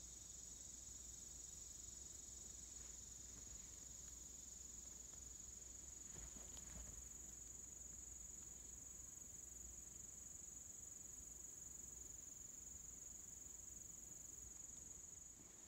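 Faint insect chorus of crickets or katydids: a steady, shrill high-pitched drone, with a faint rustle about six seconds in.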